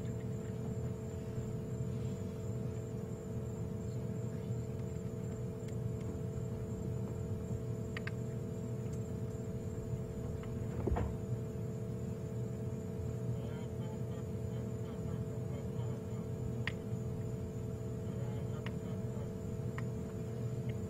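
A steady hum over a low rumble, with a few faint, sharp clicks scattered through it.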